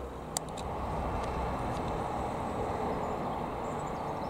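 Single-engine piston light aircraft, a Piper PA-28-180 Cherokee with a four-cylinder Lycoming engine, droning steadily high overhead. A couple of sharp clicks come near the start.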